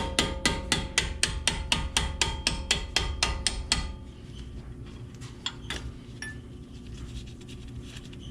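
A hammer tapping a steel punch to drive out the guide pins of a BMW M235i's M Sport Brembo brake caliper: a fast, even run of about five ringing metal-on-metal strikes a second that stops about four seconds in, followed by a few light clicks.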